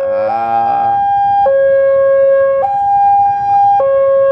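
Railway level-crossing warning alarm sounding: a steady hi-lo two-tone that switches pitch about every 1.2 seconds, signalling that the barrier is down and a train is approaching.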